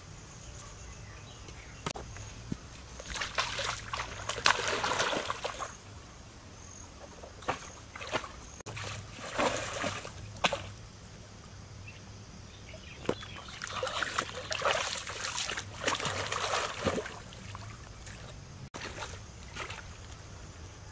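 Pool water splashing and sloshing in three bursts as a person moves through it, with drips and small splashes in between.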